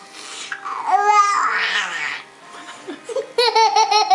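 Young children making silly high-pitched vocal noises and babbling: a rising squeal about a second in, a breathy sound after it, then a rapid pulsing run of voice sounds near the end.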